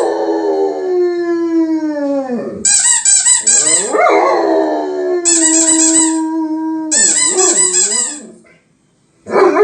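German Shepherd howling in long drawn-out notes, the first sliding down in pitch, while a rubber squeaky toy is squeezed in quick runs of squeaks three times. The dog howls along with the squeaks.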